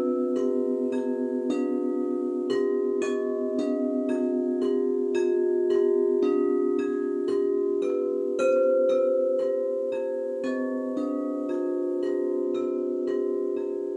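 Crystal singing bowls struck in turn with mallets, about two strikes a second, picking out a gamelan tune in ringing, overlapping tones. One strike a little past halfway is louder and higher than the rest.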